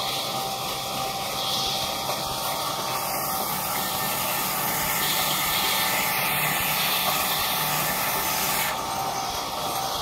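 Belt-driven band sawmill running with a steady mechanical noise and hiss as its blade saws lengthwise through a log on the carriage, a little louder about halfway through.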